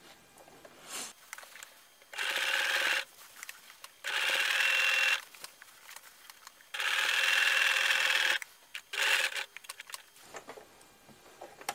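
Electric domestic sewing machine running in three short bursts of about one to one and a half seconds each, stitching through a thick quilt of backing, wool-blanket wadding and pieced top.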